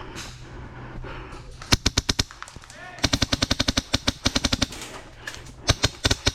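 Airsoft guns firing close by in rapid bursts: a short burst of about six shots, then a longer burst of about fifteen at roughly ten shots a second, then a few more shots near the end.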